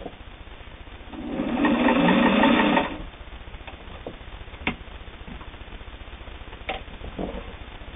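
Singer 401A all-metal sewing machine running briefly to sew a zigzag stitch, starting about a second in and stopping under two seconds later. A few light clicks follow.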